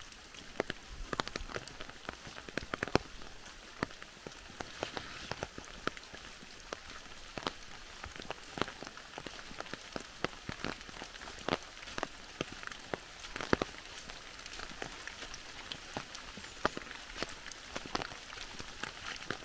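Rain falling in a woodland: a steady soft hiss with many sharp, irregular drop ticks.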